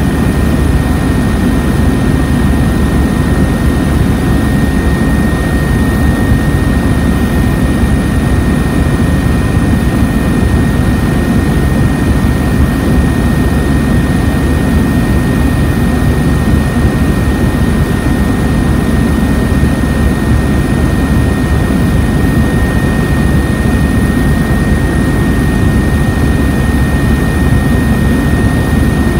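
Aircraft engine and airflow noise heard inside the cabin in flight: a loud, steady rumble with a thin, steady high whine over it.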